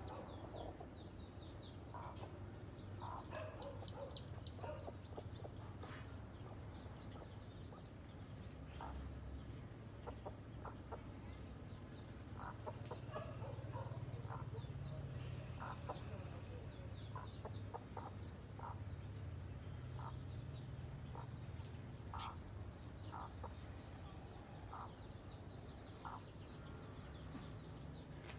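Hen clucking in short, spaced calls, with a few small high chick peeps, over a low steady rumble and a thin steady high whine. The hen is crouched over her chicks with a cobra close by, so these are likely warning clucks.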